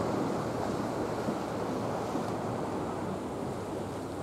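Steady outdoor wind and sea ambience: an even rush with no distinct events.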